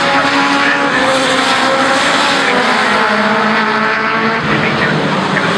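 Several racing truck engines running hard together, their overlapping pitches slowly rising and falling as the pack circulates.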